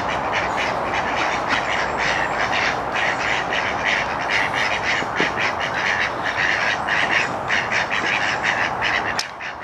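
A small flock of mallard-type ducks quacking continuously, a rapid, steady chatter of many quacks a second. This is excited calling from ducks that are following a person in hope of food at feeding time.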